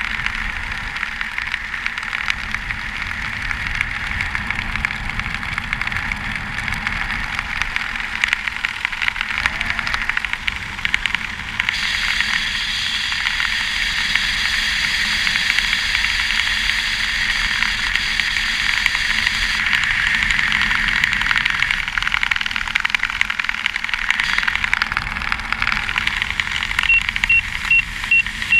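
Wind rushing and buffeting over a helmet camera's microphone during parachute canopy flight, swelling louder for several seconds in the middle. Near the end a fast run of short, high electronic beeps starts.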